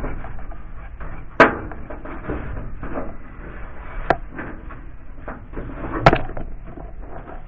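Three sharp knocks, about a second and a half in, near the middle and near the end, over ongoing rustling and handling noise, as from hands and tools at work.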